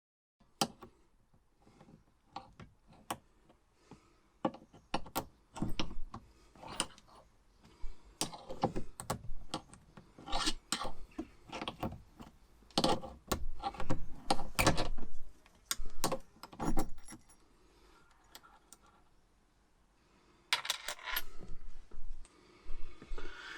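Irregular metallic clicks, knocks and rattles from hand work on a VW T4's ignition lock assembly on the steering column, with a denser stretch of rattling near the end.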